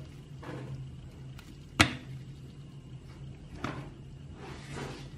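Plastic parts of a diecast Ferrari 599 model car being pulled apart by gloved hands: one sharp click about two seconds in, a softer click a couple of seconds later, then rustling handling, over a steady low hum.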